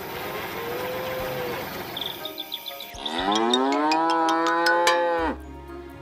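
A cow mooing once: one long call, rising in pitch at first and then held for about two seconds, starting about three seconds in.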